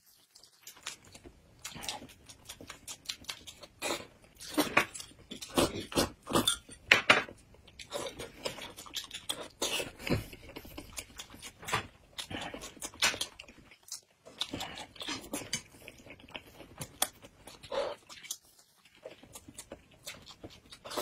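Close-up eating sounds: noodles slurped and chewed, with chopsticks now and then clinking against a metal bowl. The sounds come in irregular bursts, loudest a few seconds in.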